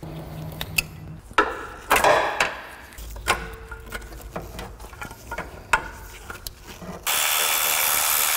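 Scattered clicks and rattles of hands working electrical connectors and parts under a car. About seven seconds in, a handheld power tool runs steadily and loudly for about two seconds, spinning out a bolt from the lower airbox support.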